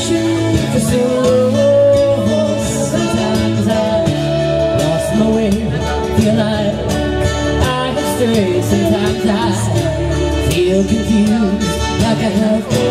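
Live band playing a song: a woman singing over a strummed acoustic guitar and a drum kit with cymbals.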